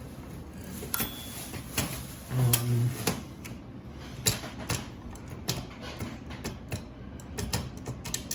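Hermès Baby portable typewriter being handled: irregular mechanical clicks and knocks from its carriage and metal parts, coming more often in the second half.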